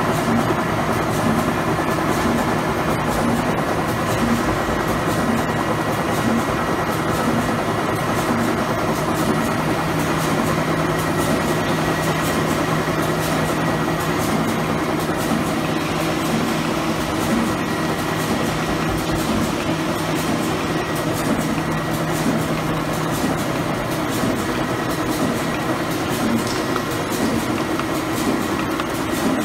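Wipes production-line machinery running: a steady mechanical din of rollers, cutters and conveyors, with a constant hum and a fast, even clatter of small clicks.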